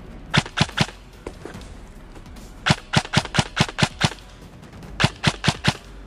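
Airsoft gun firing rapid single shots in three strings: three sharp cracks, then about seven, then four, each string at roughly four to five shots a second.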